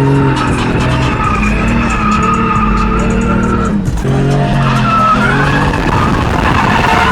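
Drift car sliding with its engine held at high revs and tyres skidding and squealing. The engine note shifts in pitch about a second in and again around four seconds in, as the throttle is worked.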